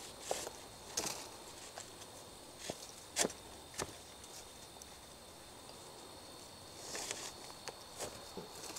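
Rope being wrapped and cinched around a bark-covered log on the forest floor: scattered short rustles and scrapes of rope on bark and shuffling in dry leaf litter, the sharpest about three seconds in and another cluster near seven seconds. A steady high drone hums behind it.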